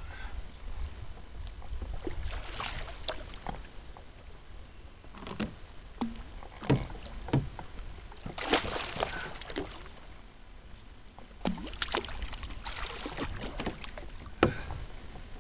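Hooked amberjack thrashing at the water's surface beside a kayak: irregular splashes a few seconds apart, with sharp knocks in between, over a steady low rumble.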